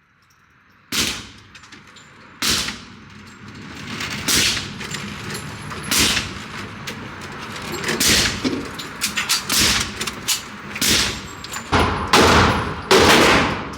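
Gunshots at a firing range: about ten loud single shots at irregular intervals with fainter shots in between, the two loudest near the end.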